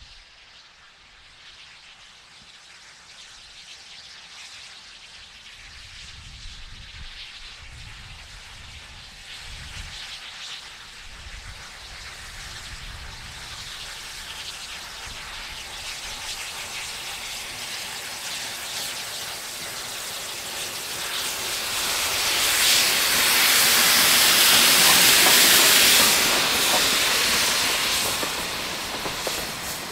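K-36 narrow-gauge 2-8-2 steam locomotive approaching and passing close by. Its hiss of steam and running noise grow steadily louder, peak loud as it goes by about three-quarters of the way through, then ease slightly as the tender rolls past.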